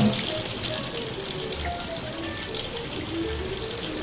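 Background music with short scattered notes and a slow, low bass pulse, over the steady hiss of a kitchen faucet running into a sink.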